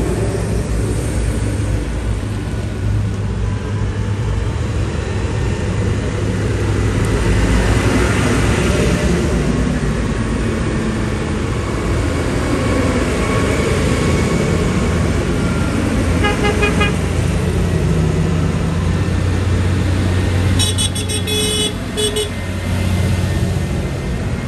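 Vintage tractor engines running in a steady low drone as a procession of tractors goes by. A horn gives a quick run of beeps about two-thirds of the way in, and a louder, longer run of beeps a few seconds later.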